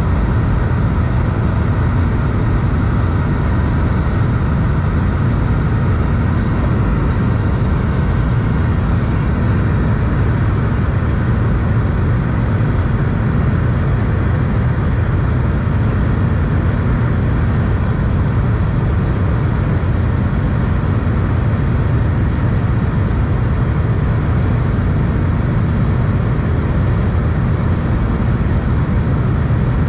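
Steady cabin noise of an Airbus A220 in flight, heard from a window seat by the wing: an even low rumble of its Pratt & Whitney PW1500G geared turbofans and rushing air, with faint steady high tones above it and no change in pitch or level.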